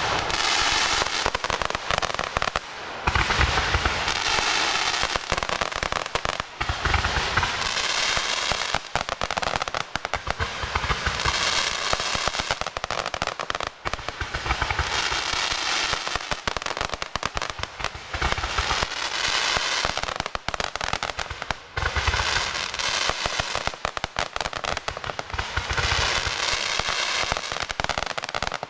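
Fireworks display: a continuous run of shots, a low thump about every two seconds, each followed by dense crackling.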